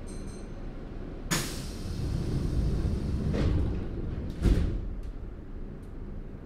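Pneumatic sliding doors of a Nagoya Municipal Subway 3000 series car closing: a sudden hiss of air about a second in, then two heavy thuds, the louder one about four and a half seconds in. A brief high chime sounds at the very start.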